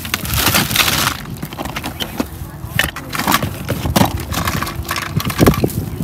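Plastic toys and diecast cars clattering and knocking together as a hand rummages through a cardboard box of toys, a rapid run of short clicks and rattles.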